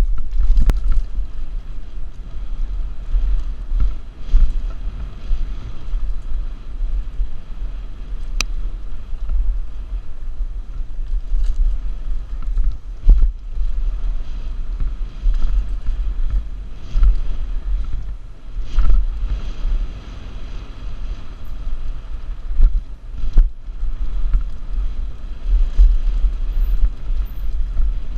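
Wind buffeting a helmet-mounted GoPro at riding speed, a deep uneven rumble, with scattered knocks and rattles from a Mongoose Pinn'r mountain bike going over rough downhill trail.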